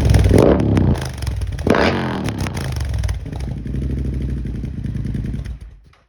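Arccaptain MIG 200 welder arc buzzing and crackling steadily as it lays a weld bead on a motorcycle exhaust pipe; it gets somewhat quieter about a second in and cuts off near the end.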